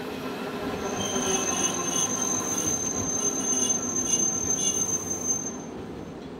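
Hankai Tramway streetcar running on its rails, its wheels squealing with one steady high-pitched tone from about a second in until shortly before the end, over the car's running rumble.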